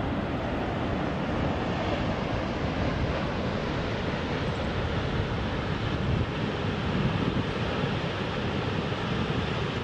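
Steady rushing of water from a single conduit outlet of the concrete arch dam, the jet spraying out of the dam face and crashing into the plunge pool below.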